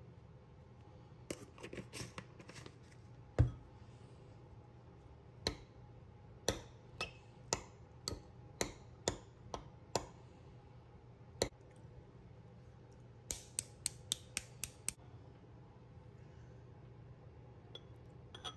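Kitchen clatter of sharp clicks and knocks, like utensils and dishes being handled, with one heavier thump about three seconds in, then a string of clicks about every half second, and a quick run of clicks near the end.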